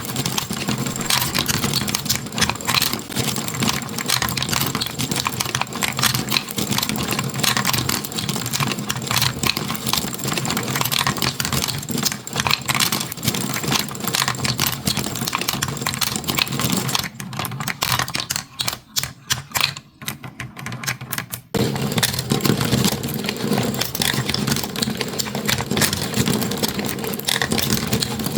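Marbles clattering and clicking rapidly down a toy marble run over a steady low hum. The clatter thins out for a few seconds about two-thirds of the way through, then picks up again suddenly.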